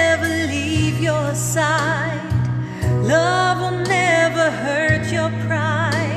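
A woman singing a slow ballad with wide vibrato over a backing track of held bass notes and light percussion.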